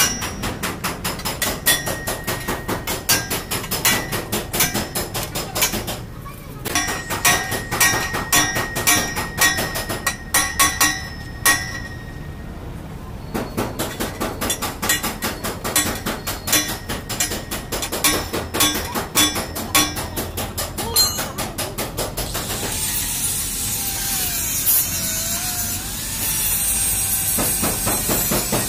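Rapid, repeated metal-on-metal hammering on a car bumper's mounting bracket while a marker rod is fitted, with a couple of short pauses. About 23 seconds in, a steady high-pitched hiss takes over.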